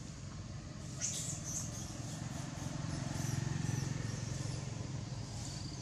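Low engine rumble, likely a motor vehicle passing at a distance, swelling to its loudest a little past halfway, with faint high chirps scattered above it.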